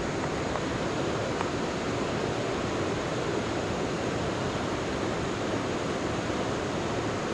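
River water rushing over rapids: a steady, even rush of noise.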